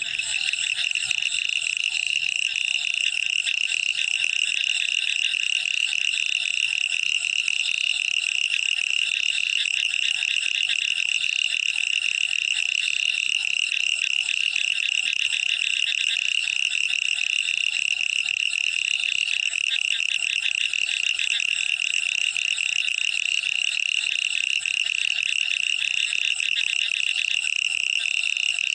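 A dense chorus of frogs giving a steady, high, fast-pulsed trill with no breaks.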